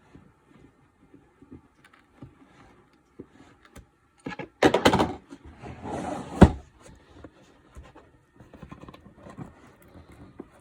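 Cardboard packaging being handled as a box seal is broken and the box opened. Faint taps come first, then a loud scraping rustle about halfway through, and a second rustle that ends in a sharp knock.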